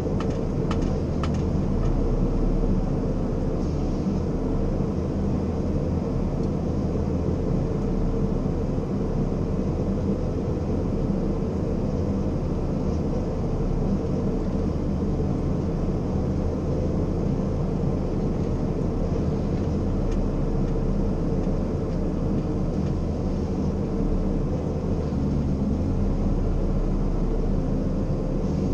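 Ponsse forestry harvester's diesel engine and hydraulics running steadily, heard from inside the cab as a continuous drone with several steady tones while the boom and harvester head work. A few faint clicks come about a second in.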